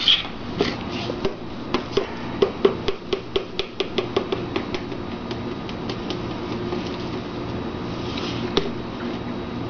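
Rapid, uneven clinking and tapping against a cup for about four seconds while chocolate milk is being mixed, then only a low steady hum.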